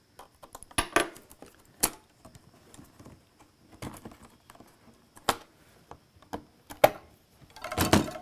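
Scattered clicks and knocks of a laptop LCD panel and its metal mounting rods being handled and worked loose from the lid, then a short run of denser clattering near the end.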